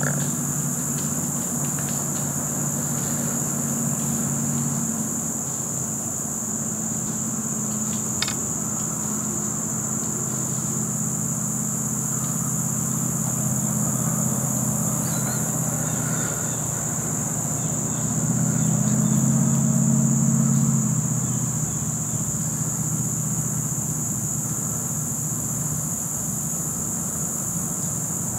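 Steady high-pitched chirring of an insect chorus in the woods. Under it runs a low engine drone that grows louder about two-thirds of the way through, and there is a single sharp click about eight seconds in.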